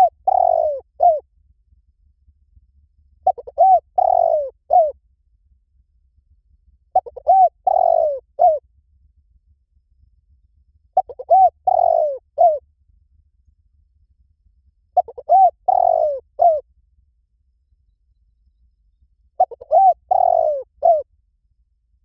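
Spotted dove cooing: each phrase is a couple of short coos, a longer drawn coo and a short final note. The phrase repeats evenly about every four seconds, six times.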